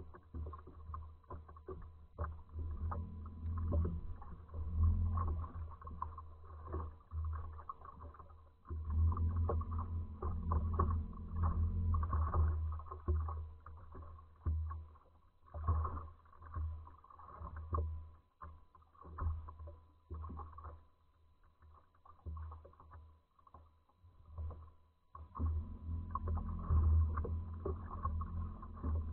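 Water lapping and slapping against a fishing boat's hull, irregular small splashes and knocks over a low uneven rumble as the boat rocks on the waves.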